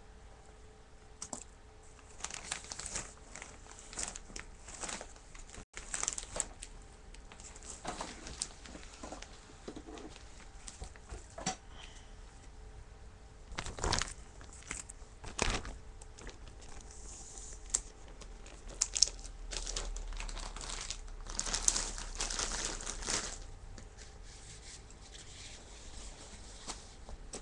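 Plastic zipper bag crinkling and rustling in irregular bursts as it is handled.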